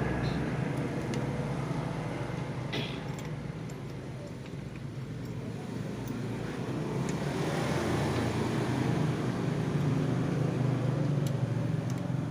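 Motor vehicle engine noise, likely passing road traffic: a steady low hum that fades about four seconds in and swells again after about eight seconds.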